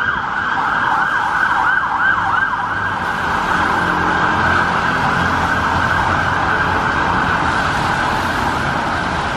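Emergency vehicle siren sounding a fast yelp, rapid up-and-down sweeps that carry on without a break, over city traffic.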